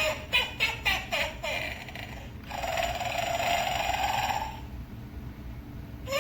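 Gemmy animated sleeping witch figure playing its recorded snoring: a quick run of four or five sputtering snorts in the first second and a half, then one long rasping snore lasting about two seconds.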